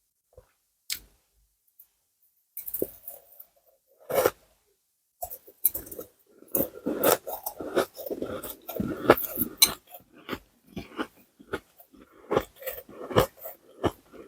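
Ice being chewed close to the microphone: a few isolated sharp crunches at first, then a dense, irregular run of crunching from about five seconds in.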